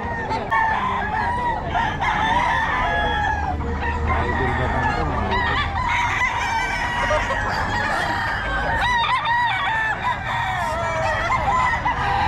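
Many roosters crowing over one another in a dense, unbroken chorus of overlapping crows.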